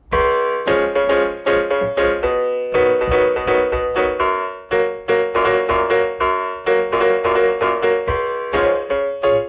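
Vangoa VGD611 61-key digital piano playing its piano voice through its built-in stereo speakers: a two-handed passage of notes and chords struck in a steady flow, dying away at the end.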